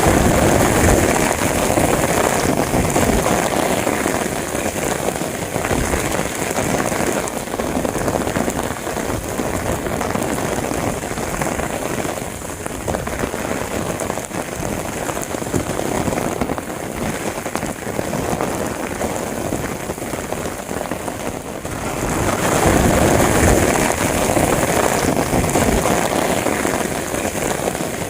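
Heavy rain falling, a steady hiss and patter that swells near the start and again late on.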